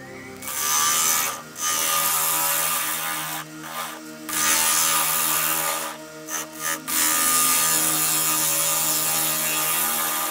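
Gouge cutting the outside of a spinning dry cherry bowl blank on a wood lathe: a hissing, rasping cut in four long passes, with a couple of short touches between them.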